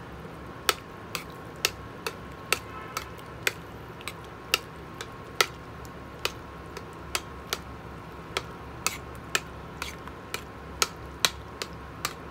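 A metal spoon stirring beans in a steel frying pan, clinking sharply against the pan about twice a second at an uneven pace, over a faint steady hum.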